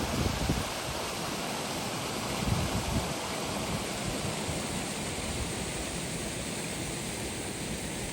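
Stream water rushing steadily, with low wind rumble on the microphone now and then, near the start and about two and a half seconds in.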